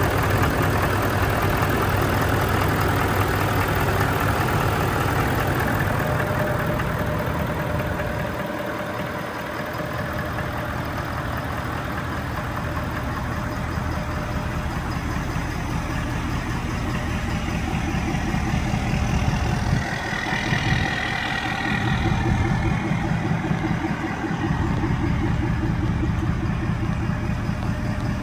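2018 Ford F-350 Super Duty dually's engine idling steadily.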